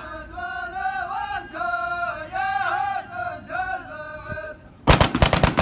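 Men chanting a tribal wedding chant in unison. Near the end it is cut into by a rapid, loud burst of automatic gunfire, celebratory shooting at the wedding.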